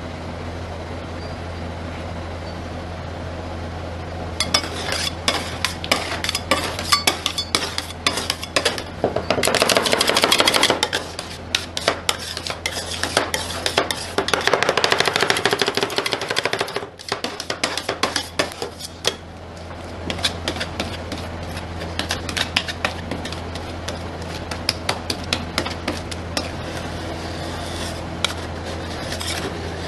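Two metal spatulas chopping and scraping on the frozen steel plate of a rolled ice cream machine, working a freezing chocolate milk base: rapid clacking taps with two longer bouts of dense scraping in the middle, then lighter scrapes near the end. A steady low hum runs underneath.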